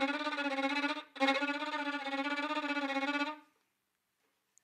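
Violin playing a fast, unmeasured bowed tremolo on one sustained low note, the ordinary tremolo as opposed to a measured one. It breaks off briefly about a second in, resumes, and stops about three and a half seconds in.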